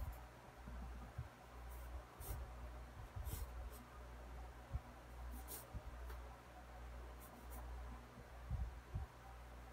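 Pencil scratching on sketch paper in short, separate strokes, a few at a time, quiet against room tone.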